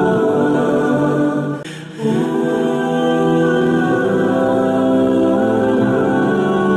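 Slow background music of long held chords with a choir-like vocal quality. The sound dips briefly about one and a half seconds in, then the next chord comes in.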